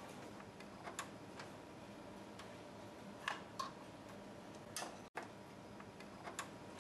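About five faint, sharp clicks and taps, a second or so apart, from hands handling power cables and plastic cable guides on a telecom equipment cabinet, over a steady low hiss. The sound cuts out for an instant about five seconds in.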